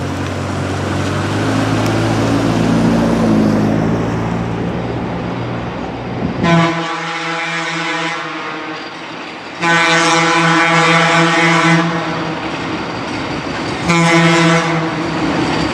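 Alco RS32 diesel locomotive's horn sounding the grade-crossing signal: two long blasts and a short one, with the final long blast just beginning at the very end. Before the horn, a low engine sound as a mail delivery truck pulls away from the crossing.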